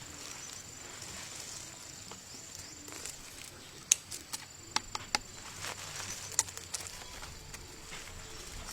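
A steady high-pitched drone, likely insects, with about half a dozen sharp clicks near the middle.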